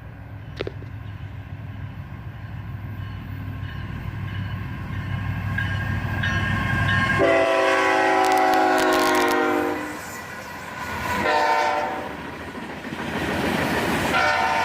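A diesel freight locomotive's rumble builds as it approaches, then its air horn sounds two long blasts, a short one and a final long one: the grade-crossing signal.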